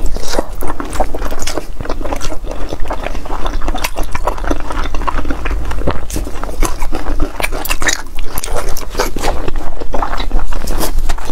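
Close-miked chewing and biting of braised pork skin: wet, sticky mouth sounds with many small clicks and crackles throughout.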